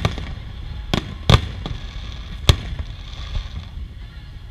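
Aerial fireworks: a series of sharp bangs from bursting shells, the loudest about a second and a half in, followed by a softer fizzing crackle.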